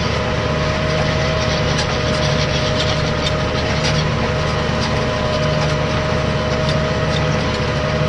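Tractor engine running steadily under load while pulling a reversible plough, heard from inside the cab, with a steady high whine above the engine note.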